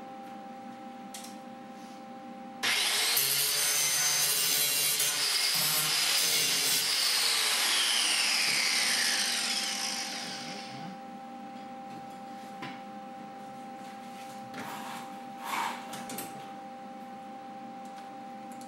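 A handheld power tool starts abruptly on the welded steel, runs for about six seconds, then fades out with a falling whine as it winds down. Under it there is a faint steady hum, and a few light knocks come near the end.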